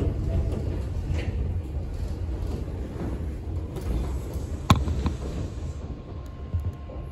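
Former Tokyu 7000-series electric train heard from inside the car: a low running rumble that fades as the train slows on its approach to a station. There is one sharp click about two-thirds of the way through.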